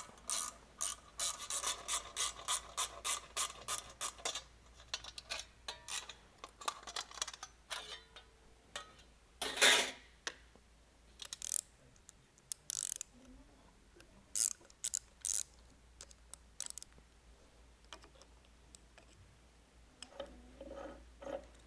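Ratchet wrench clicking in a fast even run, about four clicks a second, as the screws holding the gear pump's guards are worked loose. It is followed by scattered metallic clicks and knocks, the loudest about ten seconds in.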